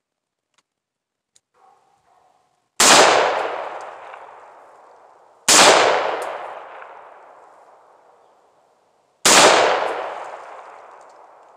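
Three rifle shots, the second about three seconds after the first and the third about four seconds later, each trailing off in a long echo.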